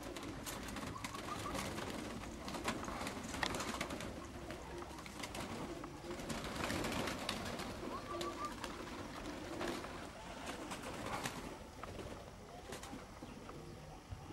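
Domestic pigeons cooing in a loft, with many scattered sharp clicks and knocks.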